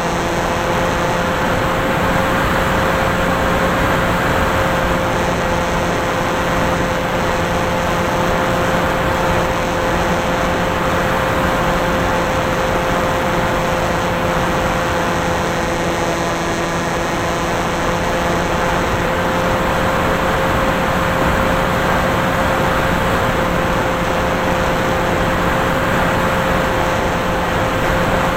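Electric motor and propeller noise of an FPV model aircraft, picked up by its onboard camera: a steady whine held at one pitch over a constant rush of wind noise, with a lower tone fading out about two-thirds of the way through.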